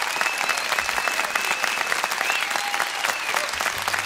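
Audience applauding after a live music performance, with whistles and cheers over the steady clapping.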